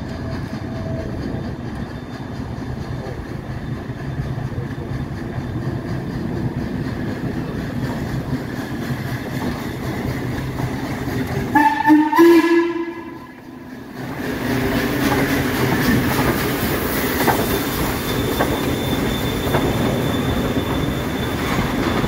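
Chesapeake & Ohio 1309, a 2-6-6-2 Mallet steam locomotive, rumbles steadily as it approaches. About twelve seconds in its steam whistle gives one short blast. Then the louder running noise of the locomotive and passenger cars rolling past close by.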